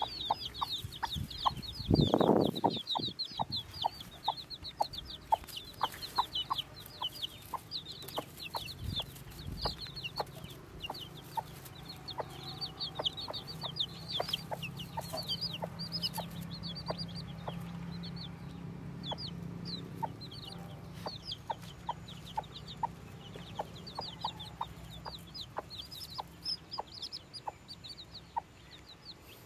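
Newly hatched chicks peeping, a steady stream of short, high, falling chirps, over a broody hen's soft clucking repeated two to three times a second. A brief louder low burst comes about two seconds in.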